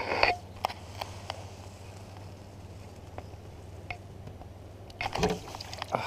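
Water splashing and dripping as a dead fish is handled at the surface and lifted out of the lake by hand, with a short splash at the start and a louder one about five seconds in, over a steady low hum.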